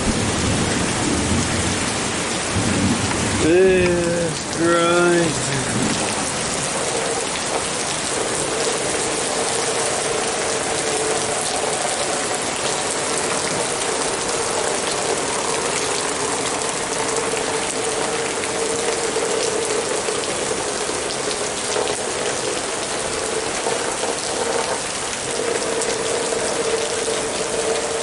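Heavy rain pouring steadily and splashing on the ground, with a faint steady hum underneath. A person's voice sounds briefly about four seconds in.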